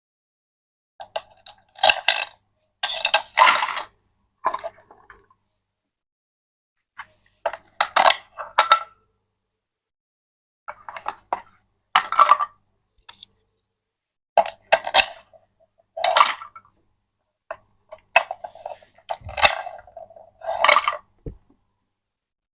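Small hard objects, like miniature toy dishes and pieces, clinking and clattering as they are handled and set down, in short bursts every couple of seconds.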